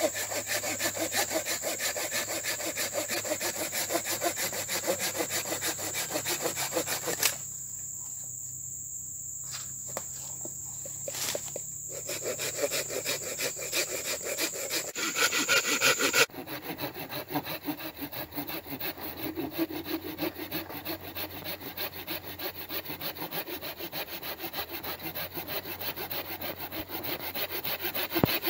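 Folding hand saw cutting through a thin branch in quick, even back-and-forth strokes. The sawing stops for a few seconds about a quarter of the way in, then starts again.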